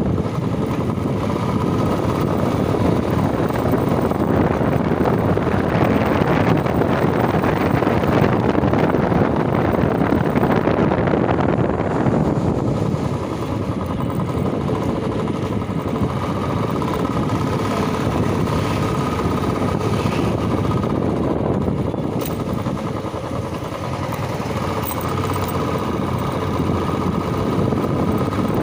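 Royal Enfield motorcycle running steadily while being ridden, its engine under a dense rush of wind and road noise. About twelve seconds in the rush eases and steady engine tones come through more plainly.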